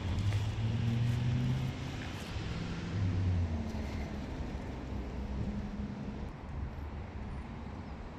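Road traffic: a car engine's low hum, strongest over the first three and a half seconds, then easing to a steadier background rumble.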